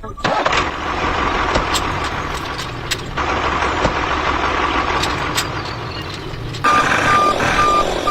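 Truck engine running steadily. Near the end a reversing alarm starts beeping, about two beeps a second.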